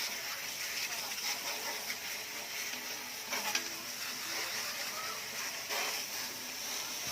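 Water spraying steadily onto a window-type air conditioner being cleaned, an even hiss with a few faint clicks.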